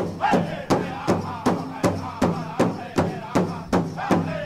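Pow wow drum song: a drum struck in a steady beat, a little under three times a second, with voices chanting over it in falling phrases.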